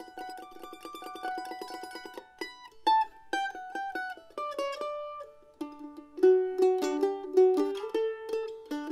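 Background music: a plucked-string instrument plays a tune, with fast repeated picking on the notes for about the first two seconds, then a melody of separate plucked notes.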